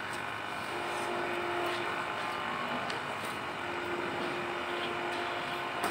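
Steady open-air background noise with a faint humming tone that comes and goes, and a small knock at the very end.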